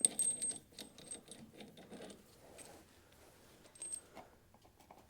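Light metallic clinks and taps of small metal parts being handled. A clink right at the start and another just before four seconds in ring briefly.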